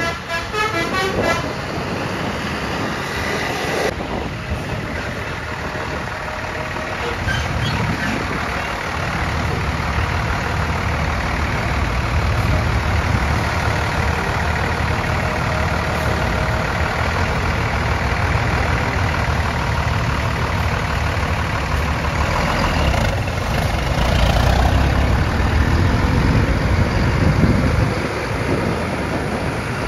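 Basuri telolet horn of a bus finishing its tune of quick pitched toots in the first second or so. Then the bus engine runs with a loud low rumble, building from about eight seconds in and easing near the end.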